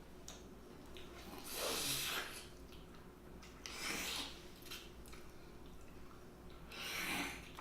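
Close-miked eating sounds: mussels being chewed, with small wet clicks and three breathy rushes of noise spaced a few seconds apart.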